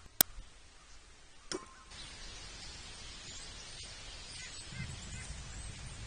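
Faint outdoor background noise from a backyard feeder camera's microphone: a sharp click just after the start and another about a second and a half in, then a steady faint hiss.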